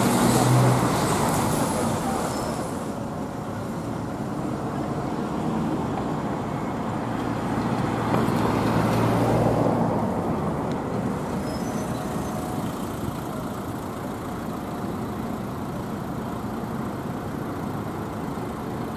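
Diesel engines of Ikarus city buses running at a bus station: a louder rush of a bus passing close at the start, then the steady drone of an articulated Ikarus 280 creeping forward along the stands, swelling about eight seconds in as it pulls up.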